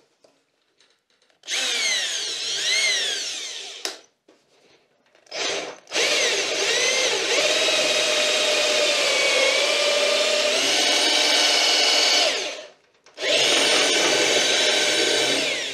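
Ridgid cordless drill driving a self-drilling screw through a plastic solar-panel mount into a cargo trailer's metal roof, in four runs: a first of a few seconds with its pitch swinging up and down, a brief burst, a long steady run of about six seconds, and a last run near the end. The screw is struggling to go through the metal, the sign that the hole needs pre-drilling.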